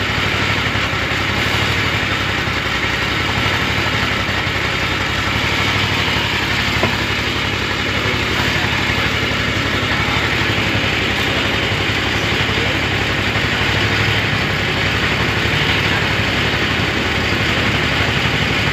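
Petrol engine running steadily at an even speed, with no change in pitch or load.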